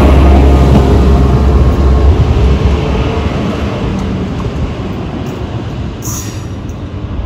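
Narrow-gauge diesel railcar passing close by, its deep engine rumble strong for the first couple of seconds and then fading as it draws away, leaving a quieter steady running noise. A brief hiss about six seconds in.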